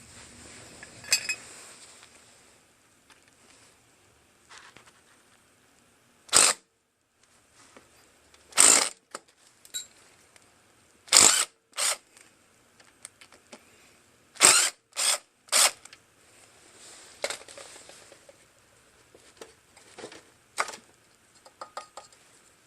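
Hand tools working on a small Tecumseh engine's carburetor: about ten sharp metallic clicks and short scrapes at uneven intervals.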